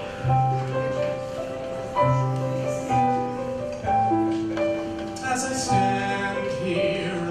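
Live band playing a slow introduction led by piano: sustained chords struck and left to ring, changing every one to two seconds over low bass notes, with a brief high shimmer about five seconds in.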